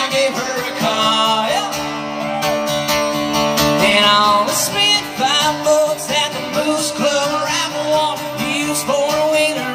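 Live amplified country song: a man singing into a microphone over his own strummed acoustic guitar, heard through the venue's PA.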